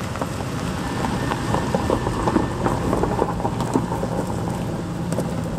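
2002 Chevrolet Silverado 1500 pickup's 4.8-litre V8 running at low speed while the truck creeps along a gravel drive, its tyres crackling over dry leaves and gravel. The crackling is thickest from about one to four seconds in, over the steady engine hum.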